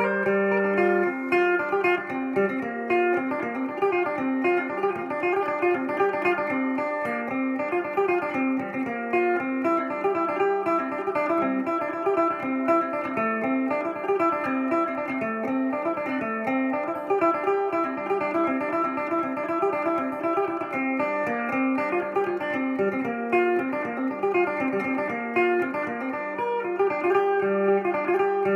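Phin, the Isan plucked lute, played solo: a quick run of plucked melody notes over a steady low open-string drone that rings strongest at the start and again near the end.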